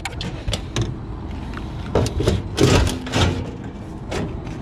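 Sheet-metal panel of a rooftop gas heating unit being handled: a couple of sharp clicks in the first second, then metal scraping and rattling from about two seconds in as the panel is worked loose.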